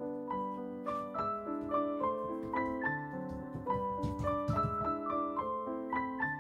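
Background piano music: a melody of short, evenly paced notes over held lower notes.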